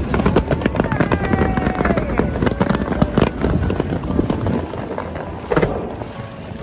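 Aerial fireworks display: rapid crackling and popping of bursting shells, densest in the first few seconds and then thinning out, with one more bang about five and a half seconds in.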